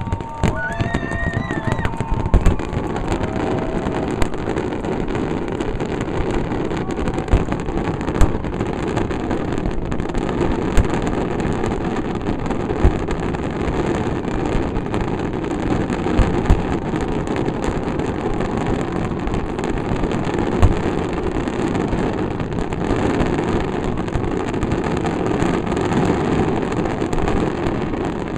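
Fireworks finale barrage: a continuous dense rumble of overlapping shell bursts and crackle, with single sharper booms standing out every few seconds.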